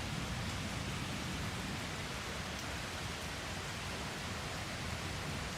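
Steady rain falling, an even hiss with no thunderclap or other sudden sound.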